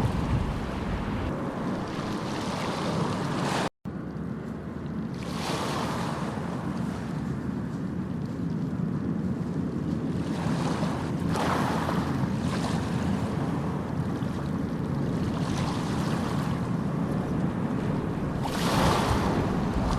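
Sea waves washing against the shore, with wind blowing across the microphone; the surf swells up every few seconds. A split-second dropout in the sound comes a few seconds in.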